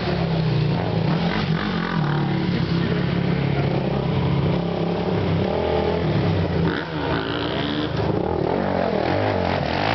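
ATV (quad) engine running and revving, its pitch rising and falling as the throttle is worked, with a dip and then several quick up-and-down revs near the end.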